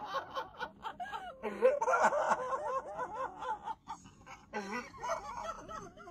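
Laughter: quick runs of short repeated laughing notes, several times over.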